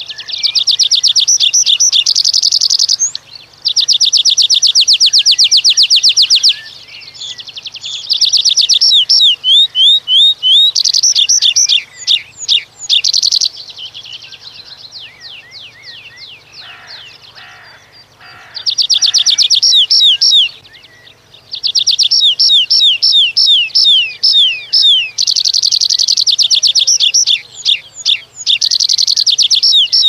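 Meadow pipit singing: a series of phrases of fast-repeated thin high notes, each phrase lasting one to three seconds, some notes sliding downward, with short pauses between phrases.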